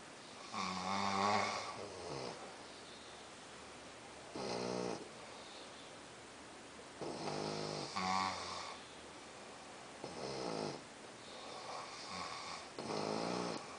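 A man and an English bulldog snoring in their sleep: about seven pitched snores, one every few seconds, some louder than others.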